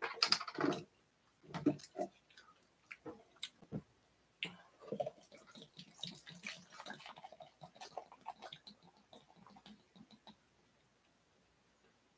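A few clicks and knocks from handling a large plastic beer bottle. Then, from about four and a half seconds in, beer runs from the bottle into a plastic measuring cup for about six seconds before stopping.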